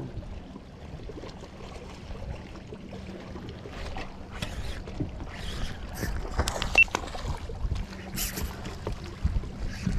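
Water lapping around a fishing kayak, with handling rustles and clicks from rod and reel. In the second half come several brief hissing bursts as a small snook is played on the line.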